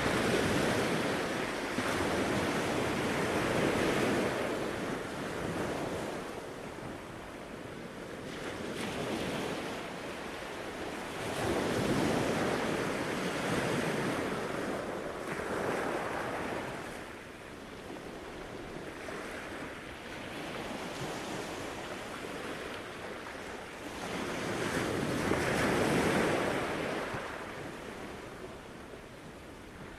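Surf breaking and washing up on a sandy beach, swelling and fading three times about ten seconds apart, with wind buffeting the microphone.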